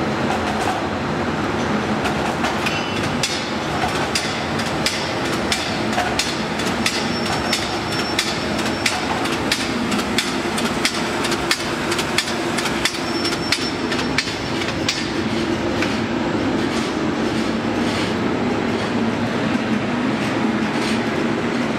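Continuous-motion side sealer shrink-wrapping machine running: a steady mechanical hum with rapid clicking and clacking, busiest in the middle and thinning out near the end.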